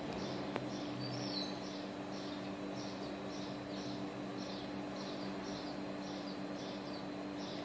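A short high chirp repeating about two times a second over a steady low hum, with one brief higher call about a second in.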